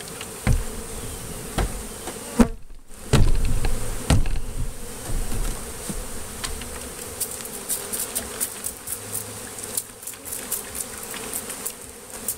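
Honeybees buzzing in a steady hum around an open hive, with many bees zipping close past. A few thumps and a loud low rumble come in the first four seconds as the cluster hanging from the box above is knocked down into the hive body.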